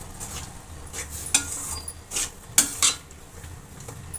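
Flat metal spatula scraping and knocking against a stainless steel kadhai as wet grated bottle-gourd halwa is stirred, about five sharp strokes between one and three seconds in, over a steady low hum.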